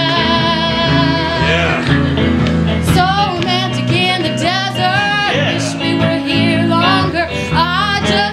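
Singing with guitar accompaniment: a voice holds long, wavering notes in an improvised song.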